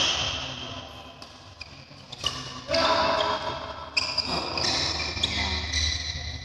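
Badminton rally: sharp racket hits on the shuttlecock every half second to second and a half, with short high sneaker squeaks on the court floor, echoing in a large hall.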